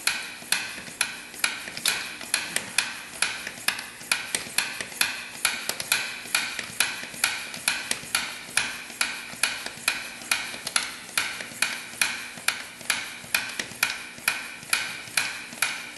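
Hand-operated oil-sampling vacuum pump being worked in steady strokes, about two to three sharp clicks a second, drawing engine oil up tubing from the dipstick tube into the sample bottle.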